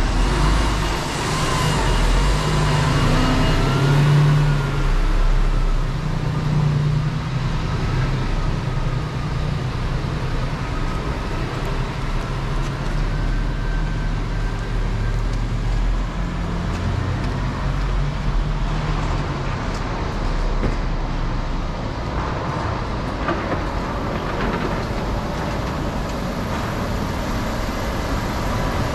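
Steady city street traffic: road vehicles running past with a continuous low rumble of engines and tyres.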